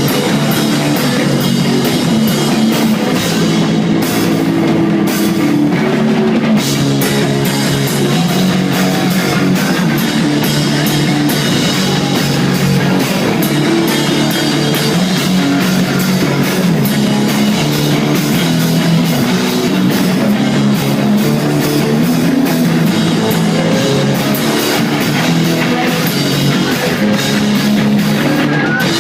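Rock band playing live at full volume: distorted electric guitar over dense, hard-hit drums, recorded with almost no deep bass.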